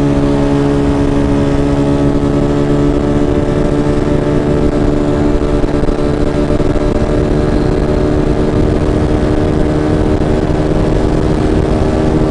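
Scooter's tuned 'super stock' engine (stock bore, lightened piston and valves, polished head) running at a steady high pitch while cruising, pulling smoothly with no hesitation, which the rider credits to the new setup. Wind rushes over the microphone.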